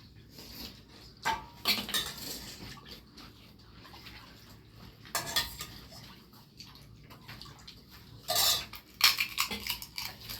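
Spoons and dishes clinking and scraping in scattered short bursts while pani puri is eaten, the loudest a little before the end.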